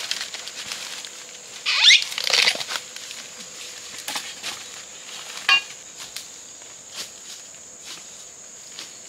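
Machete hacking at bamboo stems: a loud rising scrape of bamboo about two seconds in, then a few sharp knocks, the last and sharpest about five and a half seconds in. A steady high-pitched insect drone runs underneath.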